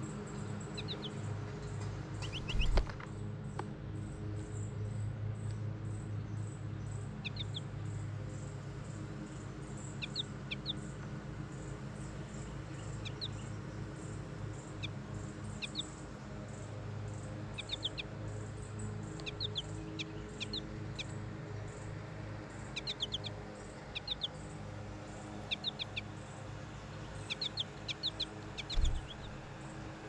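Small songbirds giving short chirps, in clusters of two or three every second or two, over a steady low hum. Two sharp thumps stand out, one a few seconds in and one near the end.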